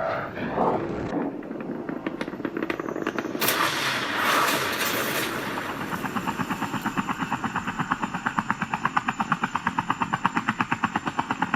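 A fast, even chopping pulse, about eight to ten beats a second, growing louder, after a burst of noise about three and a half seconds in.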